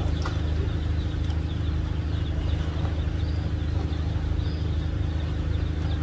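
Steady low hum of the docked fast ferry's machinery running, unchanging throughout, under a hiss of background noise from the quay.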